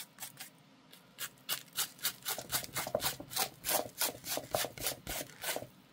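Coarse salt crystals being brushed off dried watercolour paper: brisk rubbing strokes, about four a second, after a quieter first second or so. This is the salt being cleared once the salt-texture technique has dried.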